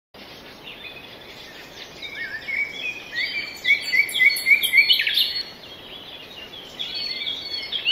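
Several small birds chirping and singing over one another, with a run of short, repeated rising notes, about three a second, in the middle, over a steady outdoor background rush.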